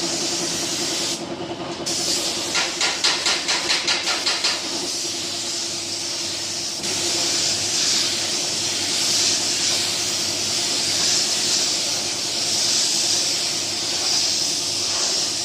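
Pneumatic paint spray gun hissing as a car bumper is sprayed, with a steady low hum underneath. For about two seconds near the start the spray comes in short rapid pulses, about four a second, then runs steadily again.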